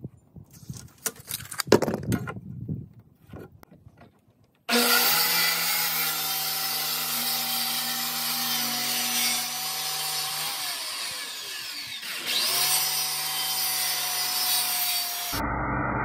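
Corded Porter-Cable circular saw cutting across a wooden board: a few light handling clicks, then the saw starts abruptly about five seconds in and runs with a steady whine. Near the middle it spins down with a falling pitch, then starts again and keeps cutting.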